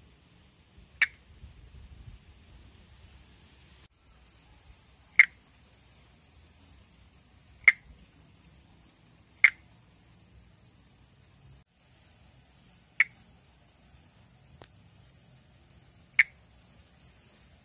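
Male Pithecopus nordestinus (northeastern monkey tree frog) advertisement calls: six short, single click-like notes spaced irregularly a few seconds apart. A faint steady high insect trill runs behind.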